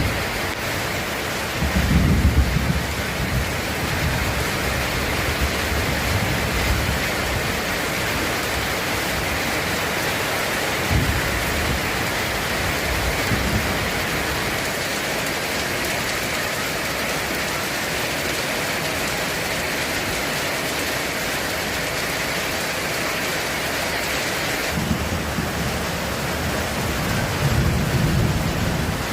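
Heavy rain falling steadily, a dense even hiss, with low rumbles of thunder about two seconds in, twice briefly mid-way, and again near the end.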